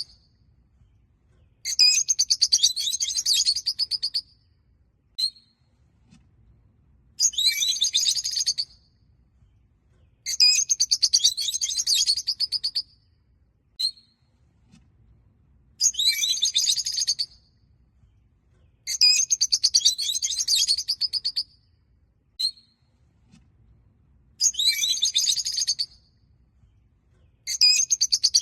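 Peach-faced lovebirds chirping: bursts of rapid, high-pitched chattering chirps lasting one to two and a half seconds, repeated every few seconds, with an occasional single short chirp in the gaps.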